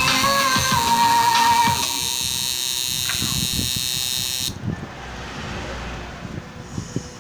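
Tattoo machine buzzing as it works on skin, with background music fading out about two seconds in.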